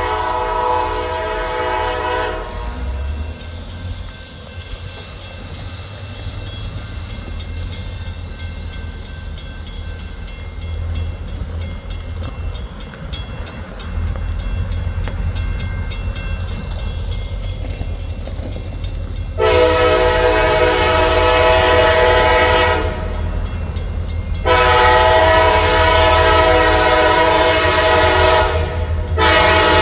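Diesel locomotive air horn sounding a multi-tone chord at a grade crossing. The end of one blast comes first; after a long gap come two long blasts, the second about four seconds long, and a third blast starts just before the end. Under the horn runs the rumble of the approaching locomotives, growing louder about halfway through.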